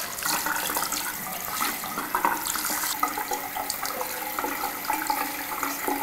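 Water running from an opened tap into a sink basin, a steady splashing rush with small irregular spatters, picked up close by a handheld recorder.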